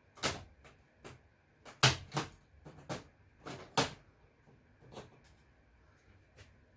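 A string of sharp clacks and knocks, about a dozen, from hard parts being handled and set down, with the loudest about two and four seconds in.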